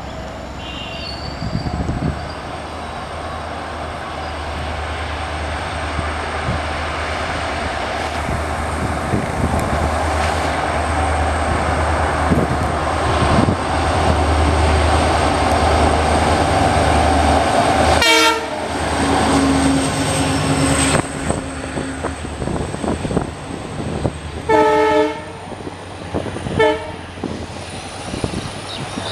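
Indian Railways diesel locomotive approaching with its engine running, a steady low rumble that grows louder over the first half. In the second half its horn sounds in several short blasts, with the wheels and wagons clattering on the rails.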